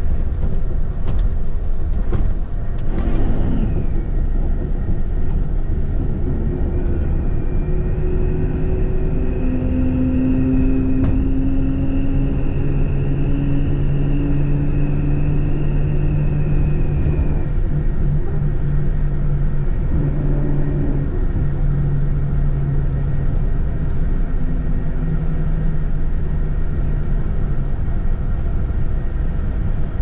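Bus engine running and road rumble heard from inside the moving bus's cabin, steady throughout, with the engine's hum coming through more clearly in the middle stretch. A faint high whine holds for about ten seconds in the middle, and a few sharp knocks sound in the first few seconds.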